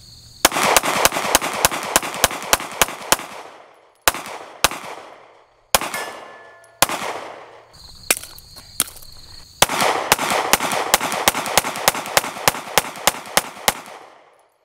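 Glock 43X 9mm pistol fired in fast strings of shots, about four a second, with a few single shots in between, each crack trailing off in an echo. Crickets faintly in the pauses.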